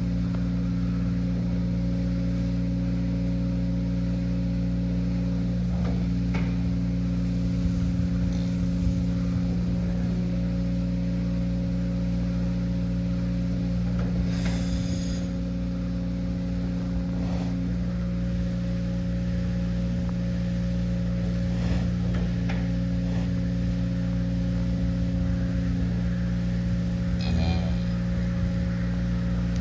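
Steady low machine hum with several fixed tones. Two brief higher-pitched sounds break through, one about halfway and one near the end.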